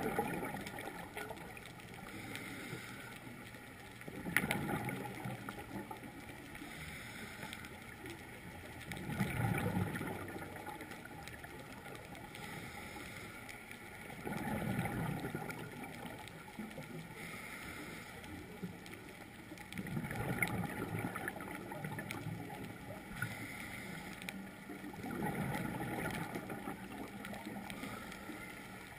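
A scuba diver's exhaled breath bubbling out of the regulator, heard underwater. It comes in six bursts of a second or two, about every five seconds, over a steady hiss.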